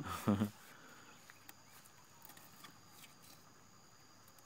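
A man's words end about half a second in. Then it is quiet, with a few faint scattered clicks from hands working a fishing hook and line in a wooden canoe.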